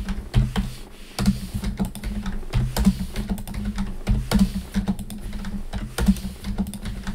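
Computer keyboard keys tapped in short, irregular clusters of clicks as Blender shortcuts are entered over and over: Shift+D to duplicate, R to rotate, then typing 20 for the angle.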